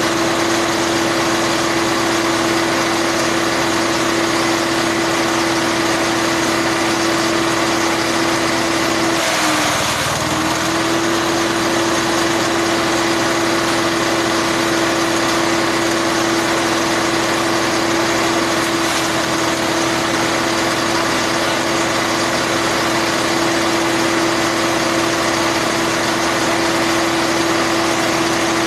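Motorised grass chopper running at speed with a steady whine over the rattle of its blades. About ten seconds in, the pitch briefly sags and comes back up as the rotor takes a load of stalks.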